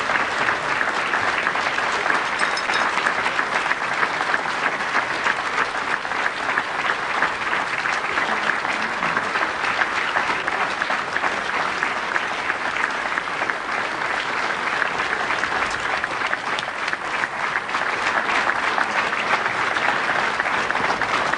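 Theatre audience applauding, a dense, steady clapping that does not let up.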